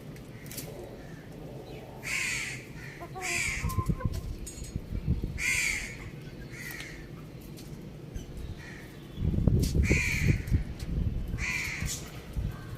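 Crows cawing: a string of short, harsh caws every second or two. Low rumbling noise comes in twice, in the middle and near the end.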